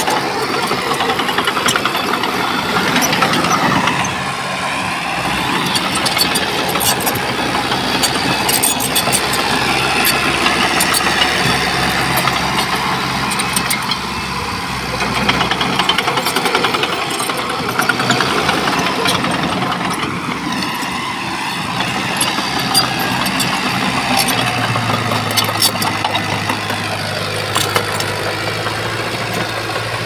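Diesel engine of heavy earthmoving machinery running continuously, with scattered sharp metallic clanks; a steadier low engine hum sets in about three-quarters of the way through.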